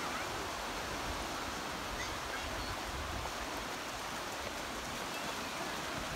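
Small waves washing in over a shallow sandy beach: a steady rush of surf.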